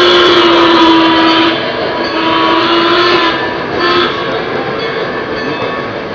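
O-gauge Lionel Legacy C&O Mallet model steam locomotive's onboard sound system blowing its steam whistle. A long blast ends about a second and a half in, a second blast sounds about two to three seconds in, and a brief toot comes about four seconds in, over the running noise of the model freight train on the track.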